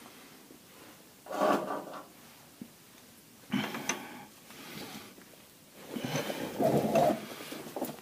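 Tools and suspension parts being handled while mounting a rear air shock absorber: three short bouts of scraping and clunking, the last one the longest.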